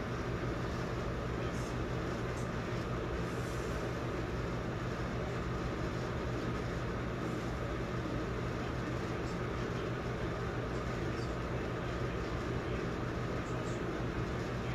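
A steady low hum with an even hiss, unchanging throughout, with faint soft rustles now and then.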